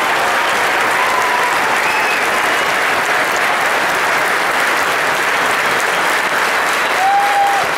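Large stadium crowd applauding steadily.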